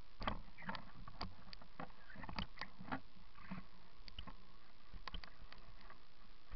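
Irregular clicks and knocks over a steady muffled hiss, with no engine heard. This is typical of a camera in a closed housing jolting on its mount.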